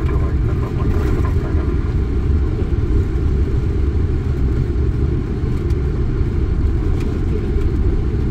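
Steady low rumble inside a Boeing 747 cockpit during the landing rollout, as the jet's engines and wheels run along the runway.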